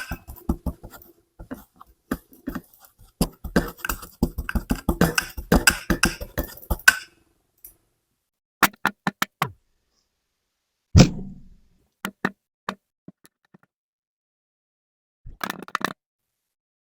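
Kinetic sand being cut and crumbled: rapid crisp crackling clicks for several seconds, then short bursts of crunching with silent gaps between them, and a heavier soft thump about eleven seconds in.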